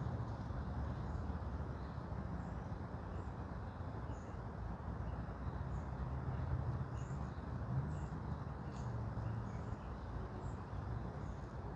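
Forest ambience: a steady low rumble with faint, short high bird chirps scattered throughout.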